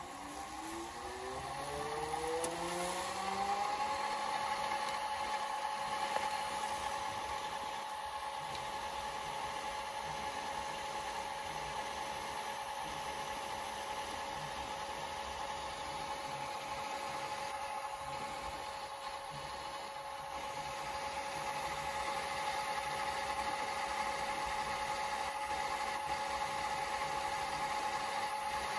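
A 1998 Broksonic TV/VCR combo rewinding a VHS tape: its tape-drive whine rises in pitch over the first four seconds as the reels spin up to speed, then holds steady.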